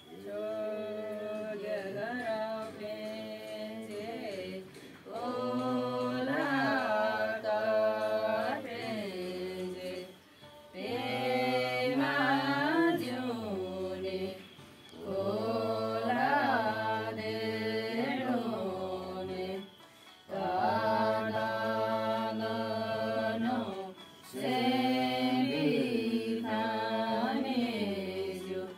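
Slow song sung in long, held phrases of several seconds each, with short pauses between the phrases.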